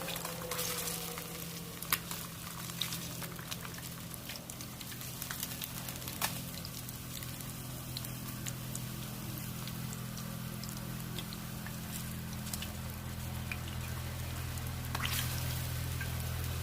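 Catfish frying in hot oil, with scattered crackles and pops over a steady low hum that grows louder in the second half.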